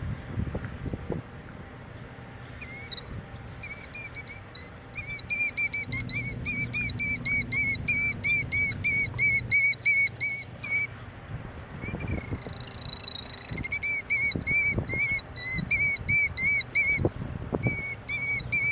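A nesting bird calling in fast, high, repeated alarm notes, about five a second, in long runs broken by short pauses, with one longer drawn-out call about twelve seconds in: the bird is agitated at someone near its eggs.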